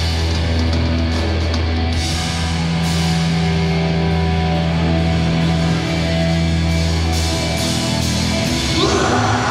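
Hardcore punk band playing live, loud distorted guitars and bass holding long low chords. A noisy wash of sound swells in near the end.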